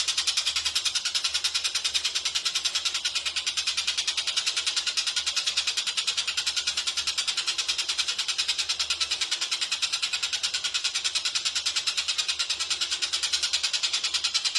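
Oriental dollarbird (tengkek buto) calling in a rapid, unbroken run of short harsh notes, about seven a second, evenly paced: the fast 'tembakan' call.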